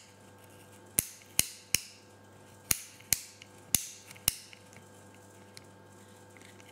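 Campagnolo left-hand shifter's indexing ratchet clicking as its lever mechanism is worked by hand: seven sharp clicks, some in quick pairs, over about three and a half seconds.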